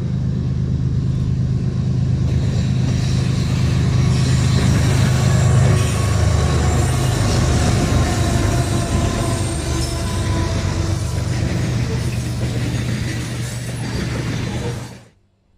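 Freight train passing at close range: a steady low engine drone under the noise of rolling wheels and cars. It cuts off suddenly near the end.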